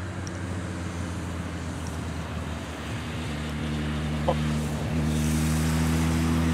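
Road traffic: a passing vehicle's engine, a steady hum growing louder through the second half, with a single short click a little past four seconds in.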